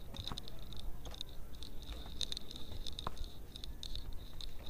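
Faint, irregular crunches, scrapes and clicks of footsteps climbing a steep dry dirt trail strewn with leaf litter.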